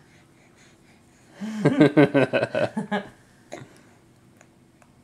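A person laughing briefly, a quick run of pitched bursts starting about a second and a half in and lasting about a second and a half.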